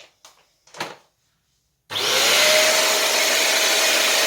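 A few light plastic clicks, then about two seconds in the Kitfort KT-509 upright vacuum cleaner switches on. Its motor spins up with a briefly rising whine and settles into a steady, rather noisy running whine with a hiss of suction.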